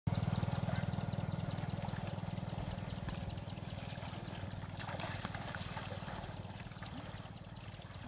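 Water buffalo wallowing and wading in a shallow pond: light splashes and trickling water, over a steady low hum that slowly fades.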